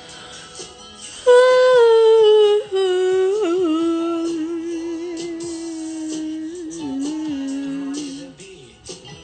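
A woman humming close to the microphone: one long note that starts about a second in, slides down in two steps, then is held with small wavers and stops shortly before the end. Quiet background music plays underneath.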